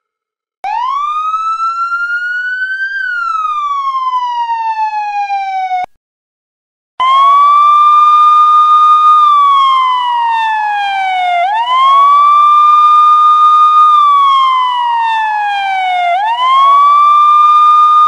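Police siren sound effects: a single slow wail that rises for about two seconds, falls for three and cuts off abruptly. After about a second of silence, a second siren starts a repeating wail, each cycle a quick rise, a held high note and a slow fall, about every five seconds.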